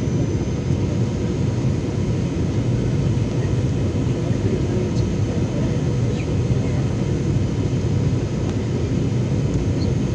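Steady low rumble of an airliner's cabin noise, engines and airflow heard from inside the cabin as the plane descends on final approach.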